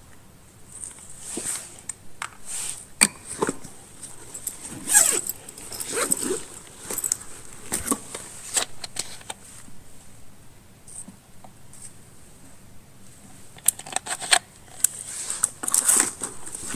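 Hand-handling noises from offerings being unpacked and set out on a floor: rustling, with scattered light knocks and clicks at irregular intervals.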